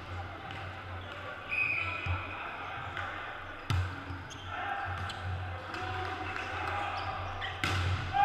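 Volleyball being struck by hand on an indoor court: sharp slaps that echo in the hall, one about four seconds in and a louder one near the end, over the murmur of players' voices.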